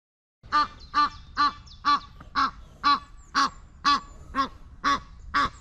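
A goose honking over and over, short even calls about two a second, starting about half a second in.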